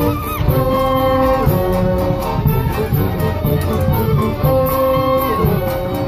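Live acoustic street band playing a tune together: accordions, clarinet, flutes, fiddle and brass carrying held melody notes over a steady bass drum and snare beat.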